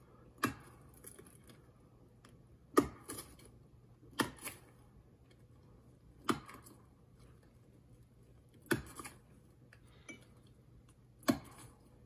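Axe chopping into the trunk of an arbutus tree while notching it for felling: about seven sharp blows, one every second or two, a couple of them followed at once by a lighter second hit.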